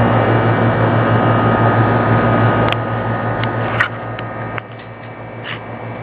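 A steady low hum under a hiss, with a few faint clicks; the hum gets quieter a little under halfway through.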